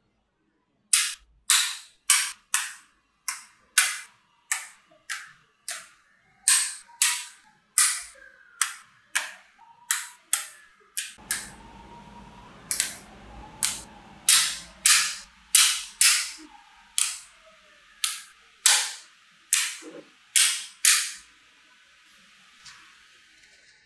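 Blocks of small magnetic balls snapping together one after another: a steady run of sharp clacks, a little more than one a second.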